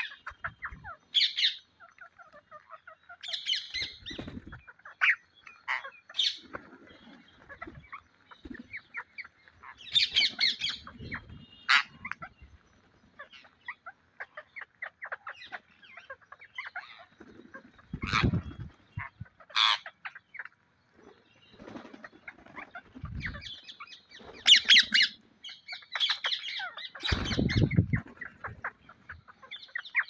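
A flock of rose-ringed parakeets calling with high screeches and rapid chatter, with several bursts of wing flapping as birds take off and land, the loudest about two-thirds of the way in and near the end.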